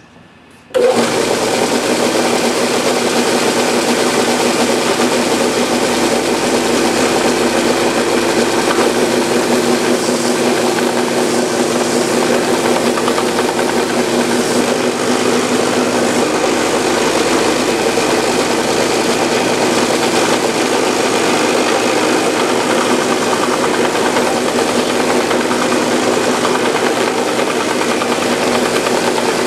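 Bench belt sander switched on about a second in, then running steadily with a fine 320-grit belt while a hardwood piece is held against the moving belt for final sanding.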